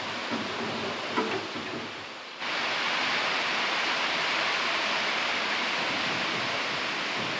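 Steady hiss of heavy rain. It turns suddenly louder about two and a half seconds in and stays even after that.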